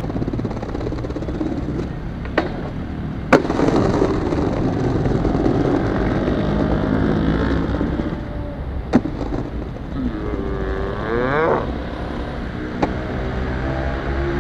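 Skateboard wheels rolling over a tiled paving surface with a steady rumble that rises and falls in pitch with speed, broken by four sharp clacks of the board.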